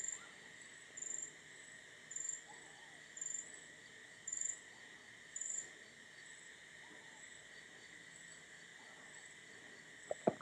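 A cricket chirping, one short high chirp about every second, clearer for the first half and fainter after. Two short knocks near the end.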